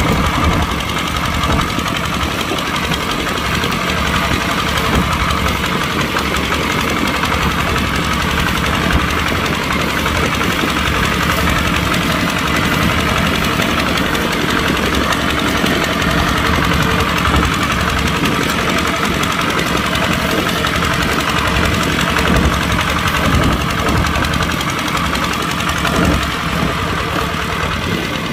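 Kubota tractor's diesel engine running steadily.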